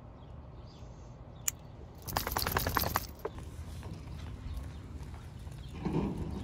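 A dog being let out of an SUV and walked on a leash over pavement: a burst of rattling and clicking about two seconds in, then steady footsteps and the dog's paws on the asphalt.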